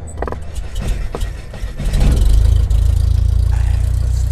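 Cinematic logo-intro sound effect: a deep rumble with crackling clicks, swelling louder about two seconds in.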